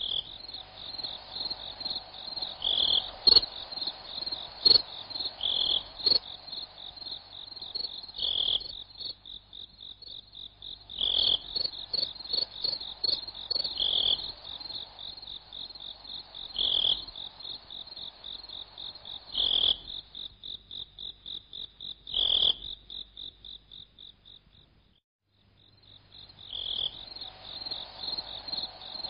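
A chorus of trilling insects, like crickets, runs as a steady high pulsing trill. A louder frog-like call repeats about every three seconds over it. The whole chorus cuts out briefly a few seconds before the end, then resumes.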